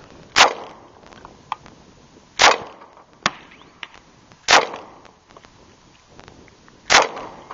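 Four shots from an HK45 .45 ACP pistol, about two seconds apart, each with a short echo trailing off.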